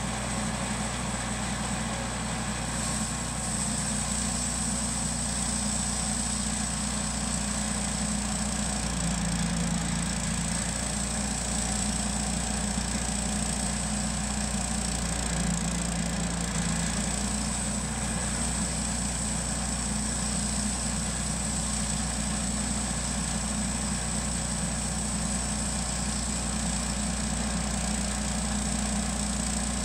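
Wood-Mizer LT10 portable bandsaw mill running at a steady pitch as its band blade cuts along a Douglas-fir log, with a steady high whine over the engine sound.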